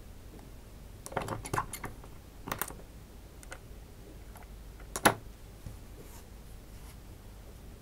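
Small clicks and taps of a dropper and little glass bottles being handled on a table, in a few quick groups, with one sharper knock about five seconds in.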